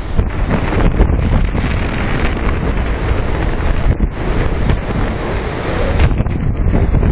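Typhoon-force wind gusting hard and buffeting the microphone: a loud, constant rushing roar with deep rumbling thumps that rise and fall from gust to gust.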